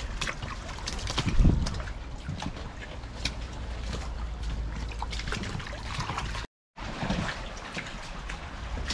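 Shallow brook water trickling, with scattered knocks and splashes over it, one louder knock about a second and a half in. The sound cuts out for a moment about two-thirds of the way through.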